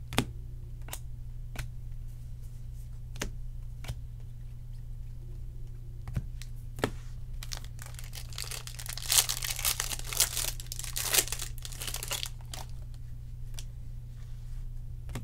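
Trading cards handled and flicked through by hand, giving sparse sharp clicks. About eight seconds in, a foil card pack is torn open and crinkled for a few seconds. A steady low hum runs underneath.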